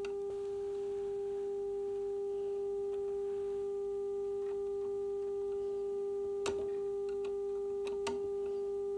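Philips 461A valve radio's loudspeaker sounding a steady single-pitched test tone: the signal generator's modulation, received on medium wave with the set tuned onto the carrier. Two faint clicks near the end.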